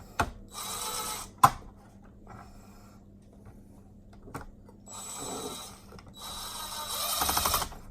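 Cordless power screwdriver running in three short bursts, the last the longest, driving screws into an RC truck's plastic transmission case, with a sharp click about a second and a half in.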